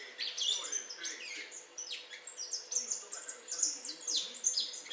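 Caged fledgling songbird twittering: quick runs of short, high chirps, many sliding down in pitch, with brief gaps between runs.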